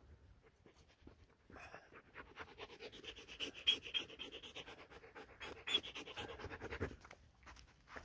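A dog panting rapidly close to the microphone, starting about a second and a half in and stopping near the end.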